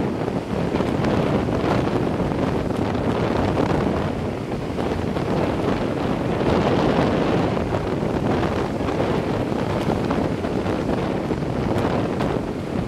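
Strong wind buffeting the microphone over the rush of breaking surf, swelling and easing in gusts.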